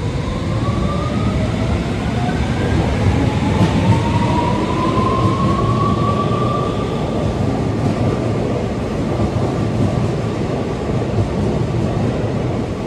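Tokyo Metro 17000 series electric train pulling away from the platform. The motors give a whine that climbs in pitch over the first several seconds and then holds steady, over the constant rumble of the cars rolling past.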